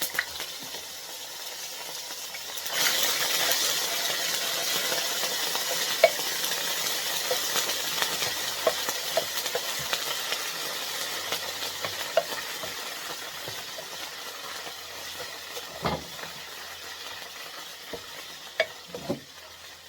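Food sizzling in hot olive oil in a frying pan; the sizzle jumps louder about three seconds in as more goes into the oil, then slowly fades, with light taps and scrapes of a utensil against the pan.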